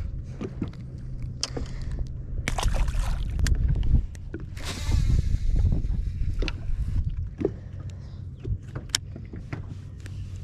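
Low steady rumble aboard a fishing boat on the water, with scattered clicks and knocks from handling gear and a brief rush of hiss about halfway through.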